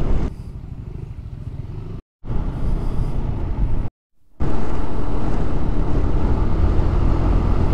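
Motorcycle riding noise, a low steady rumble, in three short pieces split by two brief cuts to silence; the first piece is quieter and the last, from about halfway in, is the loudest, with a faint steady hum under it.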